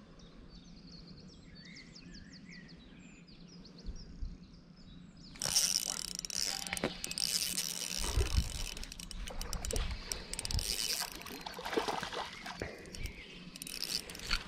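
Birds chirp faintly over a low hum. About five seconds in, loud close rustling and knocking starts and keeps going: the angler's hands and clothing moving right at the microphone.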